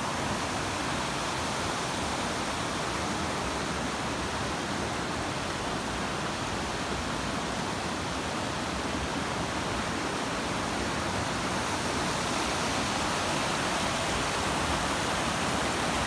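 River rushing over boulders in white-water rapids: a steady rush of water that swells slightly near the end.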